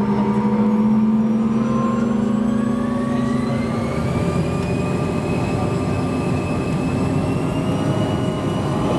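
A CRJ-200's rear-mounted General Electric CF34 turbofans spooling up to takeoff thrust, heard from inside the cabin, as the takeoff roll begins. A whine climbs steadily in pitch over a dense engine rush, and a low hum fades out a few seconds in.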